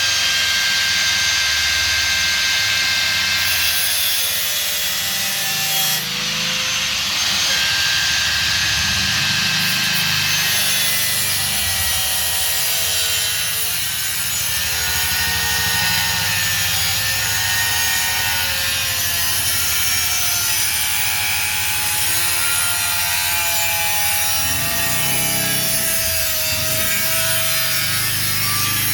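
Sheet steel for a patch panel being cut or worked with a tool, a steady rasping, sawing sound that runs without a break.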